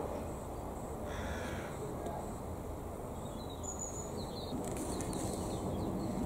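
Faint outdoor background noise with a few brief bird calls.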